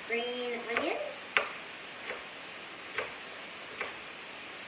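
Chef's knife slicing red bell pepper on a plastic cutting board: five sharp knocks of the blade on the board, a little under a second apart, over a steady faint hiss. A brief hummed voice sounds at the start.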